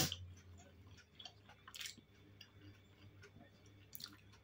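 Faint chewing of dumplings and bread, with soft wet mouth clicks and a couple of brief noises about two and four seconds in.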